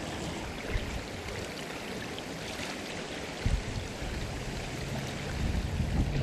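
Floodwater rushing steadily in a fast-flowing river, with a brief low thump about three and a half seconds in.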